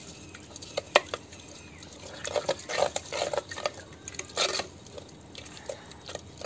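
Wooden ladle stirring a thin curry in a clay pot: sloshing liquid with scrapes and knocks of the wood against the pot. A few sharp clicks come near the start, and a busier run of stirring comes from about 2 to 4.5 seconds in.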